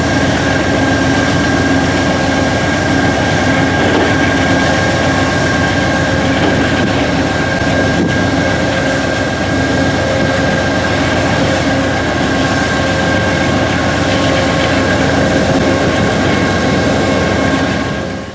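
A train running past: a steady, loud rumble and rush of wheels on rail with a few steady ringing tones over it, cutting off abruptly at the end.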